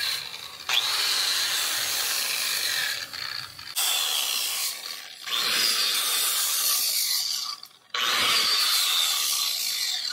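Metabo angle grinder grinding metal off a hand-held small-engine camshaft. It goes in about five passes, each a second or more long, with brief breaks between them. This is clearance grinding so the cam clears the crank and connecting rod.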